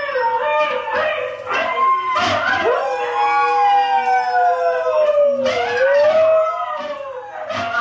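A husky howling along with recorded huskies howling from a TV. Several long howls overlap at different pitches, and one long howl slides slowly down in pitch through the middle.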